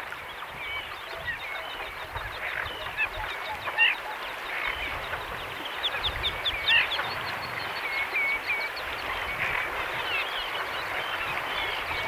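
Birds calling on a lake: many short, high, hooked chirps and squeaks, thick and frequent, over a steady hubbub of more distant calls.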